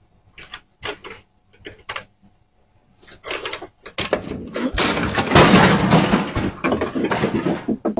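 Footsteps on wooden porch steps, then a wooden porch railing cracking and giving way under a person's weight, with a long loud crash about five seconds in and clattering after it.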